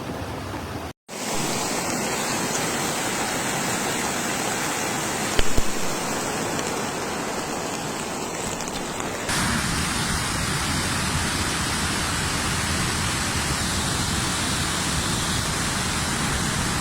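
Rushing floodwater: a steady, even rush of water with a brief knock about five and a half seconds in. It cuts out briefly about a second in and changes in tone around nine seconds in.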